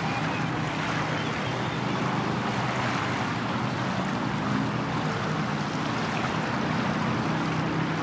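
Wind blowing over the microphone and river water rippling against the shore, a steady rushing noise, with a low steady hum underneath.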